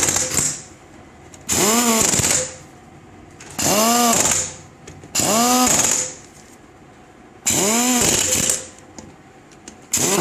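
Air tool, most likely a pneumatic impact wrench, run in short bursts of about a second, roughly every two seconds, with a rattling hammer and a hiss of air in each. Its whine rises and falls within each burst as it spins up and runs down.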